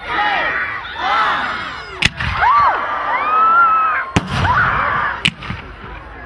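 Crowd shouting and cheering at a fireworks display, with three sharp firework bangs cutting through, about two, four and five seconds in.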